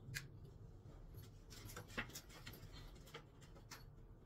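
Faint rustling of a paper instruction leaflet and light handling clicks, a few scattered small ticks.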